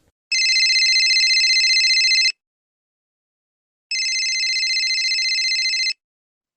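Telephone ringing: two trilling rings of about two seconds each, with a pause of about a second and a half between them.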